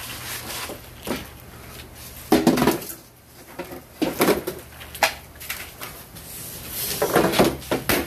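A metal pan clattering and scraping as it is handled and set on a kettle grill. There are several separate knocks and rattles, the loudest about two and a half seconds in and again near the end.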